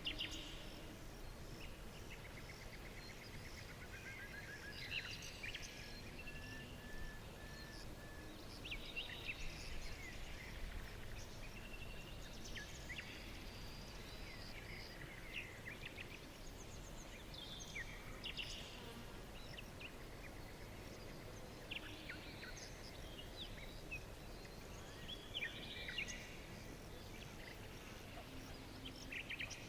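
Several songbirds chirping and trilling, with short whistled notes and quick falling sweeps coming one after another over a steady low background hiss.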